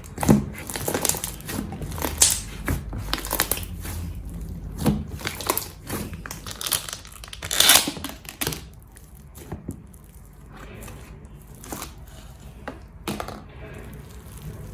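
Slime being squeezed and worked by hand, giving irregular crackling and popping clicks, busiest in the first two-thirds and thinning out after that.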